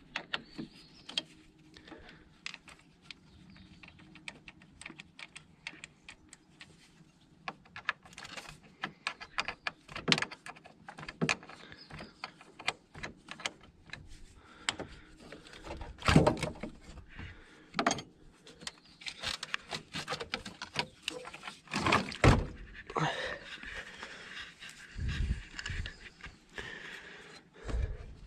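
A run of scattered clicks, knocks and thunks of hands and tools handling car parts during a repair, with louder thuds about sixteen and twenty-two seconds in.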